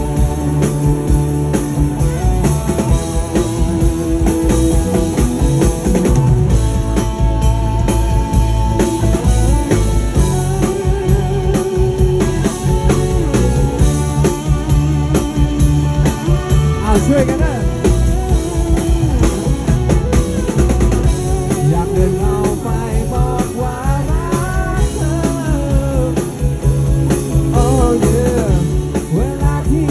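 A live rock band playing a Thai pop-rock song, electric guitars to the fore over a steady low bass, with a lead guitar line on top. A man's singing voice comes in near the end.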